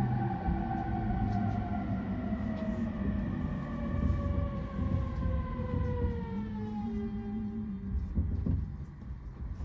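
Electric train's inverter-driven traction motors whining, dropping steadily in pitch as the train brakes to a stop at a platform, heard from inside the carriage over the low rumble of the wheels. The whine fades out about seven seconds in as the train halts.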